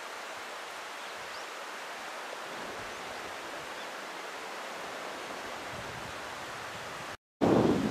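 Steady rushing of a mountain stream. Near the end the sound cuts out for a moment and comes back as louder rustling with wind on the microphone.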